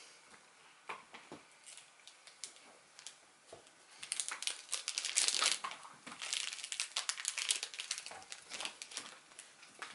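Plastic snack wrapper crinkling as it is handled, starting about four seconds in and going on for several seconds, after a few faint clicks.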